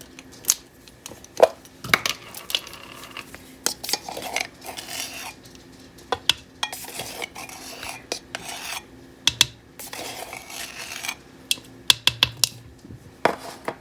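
A measuring spoon clinking and scraping against containers and a mixing bowl as baking powder is spooned out: scattered sharp clicks and taps with short scraping sounds in between. A faint steady hum runs underneath.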